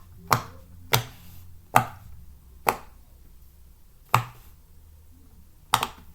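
Silicone pop-it fidget toy bubbles being pressed, one at a time: about seven sharp pops at irregular intervals, two in quick succession near the end.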